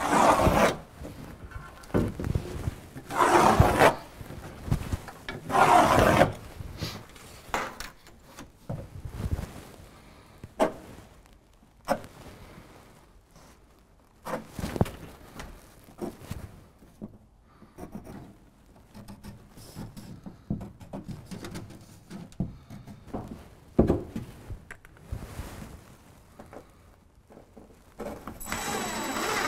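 Irregular rubbing, scraping and knocking of a level and pencil against a foam tile backer board while screw lines are marked, with a few louder scrapes and bumps in the first several seconds. Near the end a cordless impact driver starts to run.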